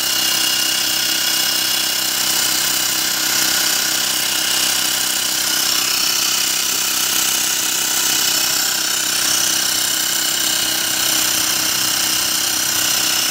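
Xiaomi Mi portable battery-powered electric air compressor running steadily as it pumps up a car tyre, with a continuous buzzing drone.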